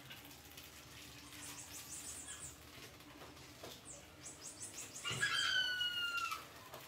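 Caged rats squeaking: two bursts of rapid high chirps, then, about five seconds in, a loud drawn-out squeal lasting just over a second that falls slightly in pitch.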